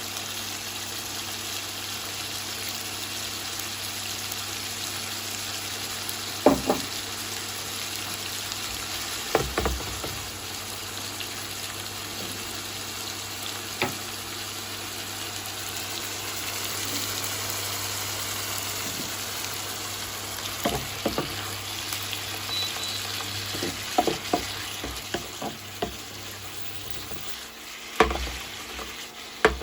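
Fish and seafood frying in olive oil in a pan with a steady sizzle. A utensil knocks against the pan now and then, several times in quick succession towards the end.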